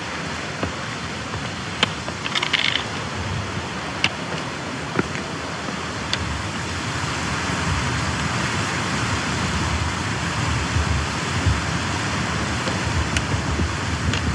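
Steady rushing of a mountain stream tumbling over rocks, with wind buffeting the microphone in low gusts that grow stronger after the middle. A few sharp clicks of trekking-pole tips on rock.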